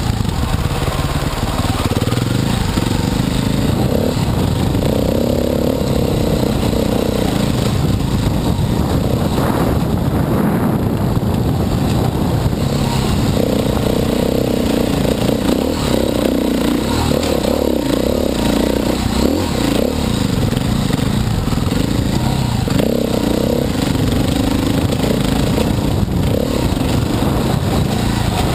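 Dirt bike engine running as it is ridden over a rough trail, its note rising and falling with the throttle over several stretches, heard from the rider's helmet.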